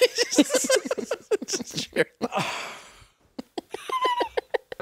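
Several men laughing hard in quick bursts, with a high squealing laugh near the end.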